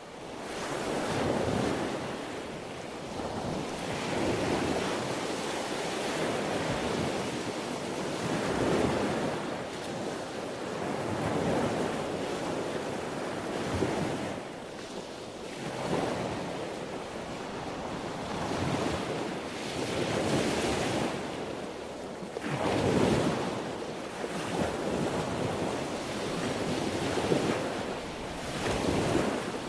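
Sea waves breaking and washing on the shore, a steady rush of surf that swells and ebbs every few seconds.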